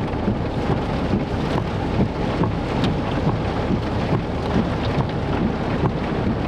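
Heavy rain and wind in a thunderstorm's rain core: a steady loud rush with scattered sharp drop hits.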